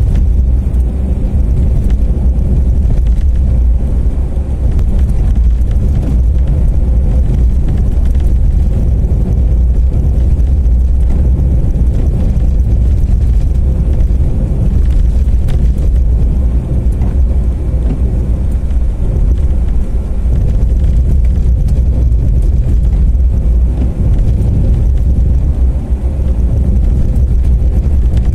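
A car driving along a wet road, heard from inside the cabin: a steady low rumble of engine and road noise that does not change.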